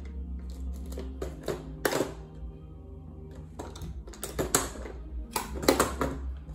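Irregular clicks and clacks of small hard objects being handled close to the microphone, in three quick clusters, over quiet background music.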